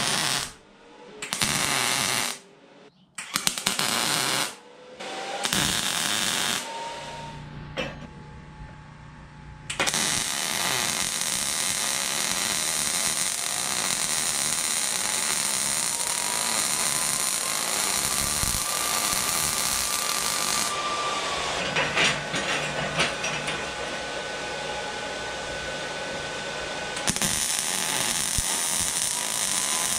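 Wire-feed arc welding on a steel rod bracket. It starts as several short bursts of tack welds, then from about ten seconds in runs as one continuous steady weld.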